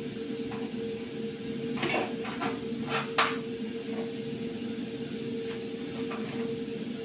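Pressure cooker on the gas burner hissing steadily as steam escapes past its weighted valve, with a constant tone under the hiss. A few short knife clicks on a cutting board about two to three seconds in, as crusts are cut from bread slices.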